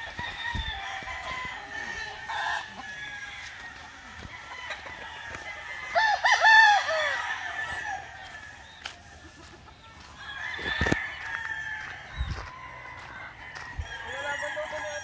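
Gamefowl roosters crowing, several overlapping at once, with one much louder crow about six seconds in.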